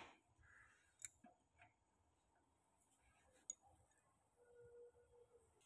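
Near silence: room tone with two faint clicks.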